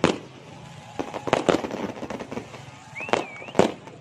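Fireworks exploding in an irregular series of sharp bangs, the loudest about three and a half seconds in.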